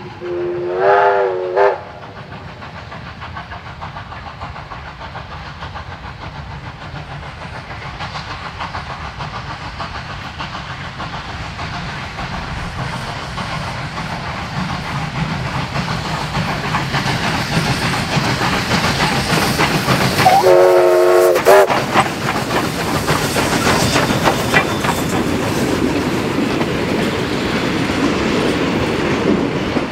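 Two double-headed Victorian Railways K class 2-8-0 steam locomotives approaching and passing, their running noise growing steadily louder. The steam whistle blows once right at the start and again about twenty seconds in. The carriages then roll by with a clickety-clack of wheels on rail joints.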